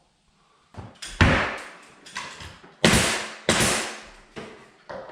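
A series of about seven sharp knocks at uneven intervals, each fading quickly, the loudest a little over a second in, as the crown molding is worked in against the wall.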